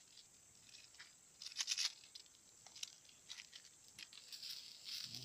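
Campfire of burning wood and a green bamboo cooking tube crackling with irregular sharp clicks and pops, loudest in a quick cluster about one and a half seconds in.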